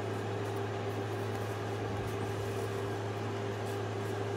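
Steady low mechanical hum with a fainter steady tone above it, unchanging throughout.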